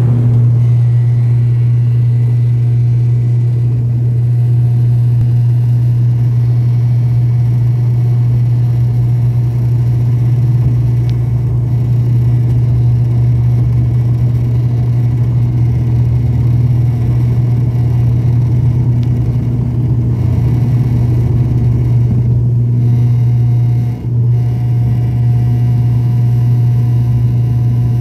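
Turboprop airliner's propeller engine heard from inside the cabin during takeoff: a loud, steady low drone through the takeoff run and climb-out, with one brief dip in loudness near the end.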